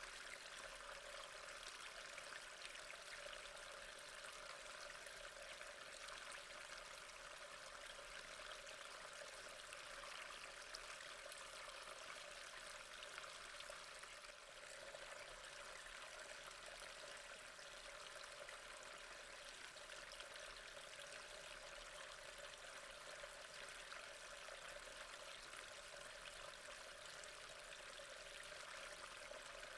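Faint, steady trickle of gently flowing water.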